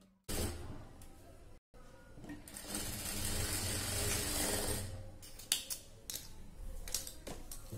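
Industrial single-needle lockstitch sewing machine stitching a shoulder seam through thin blouse fabric, running steadily for about two and a half seconds from a little over two seconds in. A few sharp clicks follow near the end.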